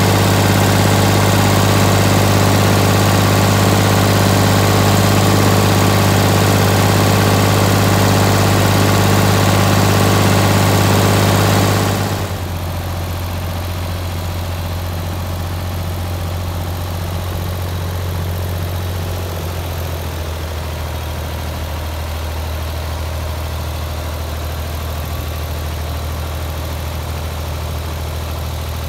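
Ford 4000 three-cylinder diesel tractor engine idling steadily, loud and close at its vertical exhaust stack. About twelve seconds in the sound drops and the engine is heard from behind as the tractor tows a hay wagon at low speed, still running evenly.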